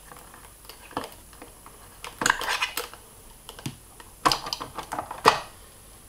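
Small hard clicks and taps of a screwdriver working out the screws that hold an iMac's internal speaker and fan. They come irregularly, with a quick cluster about two seconds in and the sharpest knocks near the end.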